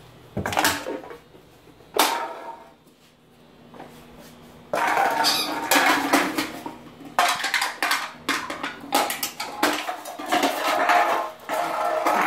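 Aluminium beer can being pushed along a hardwood floor by a small dog: two separate knocks at first, then almost continuous clattering and scraping from about five seconds in.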